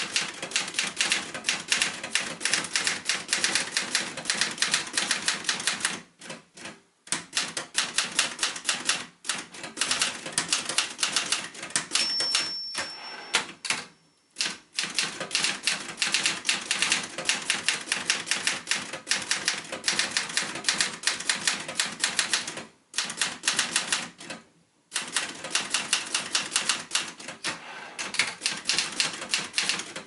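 1972 Facit T2 manual office typewriter being typed on steadily: rapid clacking of keys and typebars striking the platen, broken by a few short pauses, with a brief high ring near the middle.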